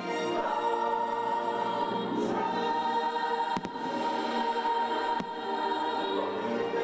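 Fireworks show soundtrack of choir and orchestra playing over loudspeakers, with a few sharp firework bangs, two close together about halfway through and one more a second and a half later.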